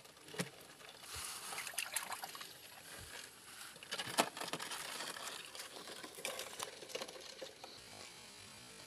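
Shallow stream water trickling and sloshing as hands dig through wet mud and stones, feeling under rocks for crabs, with a few sharp clicks from stones knocking, the loudest about four seconds in.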